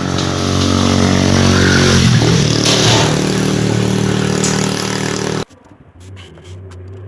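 A motor vehicle's engine running close by, its pitch mostly steady. It cuts off abruptly about five seconds in, leaving a quieter hum.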